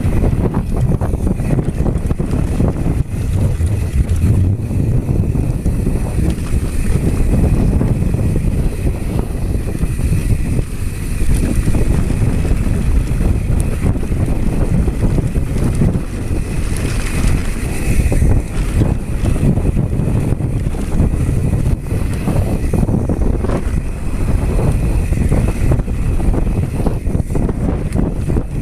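Wind buffeting the microphone of a gimbal-mounted GoPro on a mountain bike descending a dirt trail at speed, over a steady rumble of tyres on loose ground, with the bike clattering and knocking on the rough surface.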